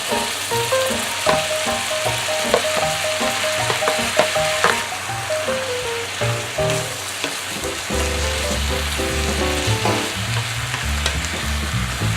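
Food sizzling in a pan with a steady hiss, and a utensil clicking against the pan now and then as it is stirred. Background music with a melody runs under it, with bass notes coming in about eight seconds in.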